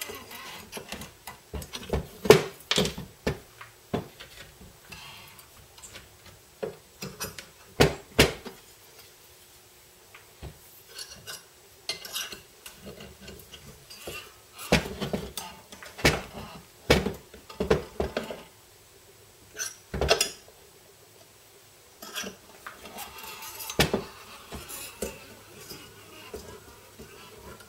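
Scattered metal clinks and knocks as a Honda CT110 cylinder head, small valve parts and hand tools are picked up and set down on a workbench, in irregular clusters with short quiet gaps.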